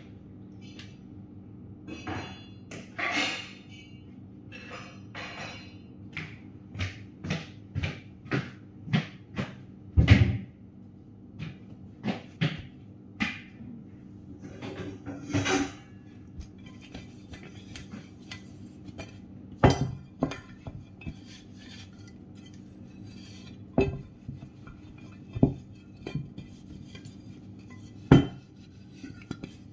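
Dishes, glassware and cutlery clinking and knocking as they are picked up and set down on a table, in irregular single strikes with short pauses, a few of them sharp and loud. A low steady hum runs underneath.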